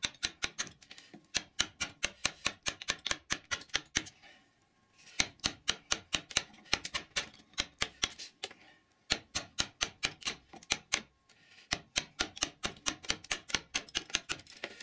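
Carving gouge driven through wood with rapid, even mallet taps, about four a second, in four runs with short pauses between them, as it cuts a line of wood away along the block.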